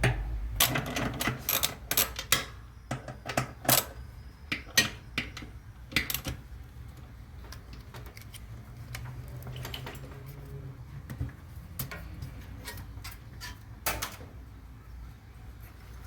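Hand tools and metal parts clicking and knocking while the transmission bolts of a Whirlpool top-load washer are undone, with the clicks coming thick in the first half and sparser later, over a steady low hum.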